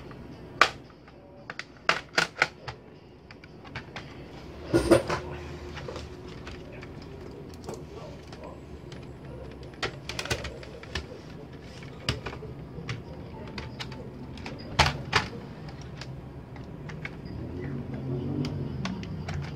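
Sharp plastic clicks, snaps and knocks from a Compaq Presario CQ61 laptop's plastic case as it is handled, turned over and pried at with a plastic pry tool. They come in scattered small groups, the loudest cluster about five seconds in.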